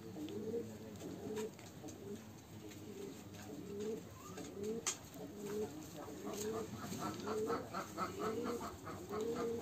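Domestic pigeons cooing over and over, a low rolling coo about once a second, with a quick run of short higher notes joining in over the last few seconds.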